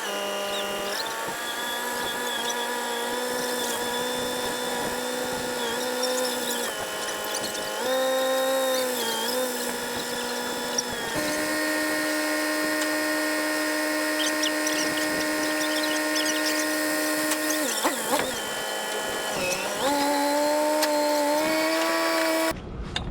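A motor whining at a steady pitch while it lifts a heavy machine, the pitch stepping down and back up several times as the load changes, with light clicks and rattles over it.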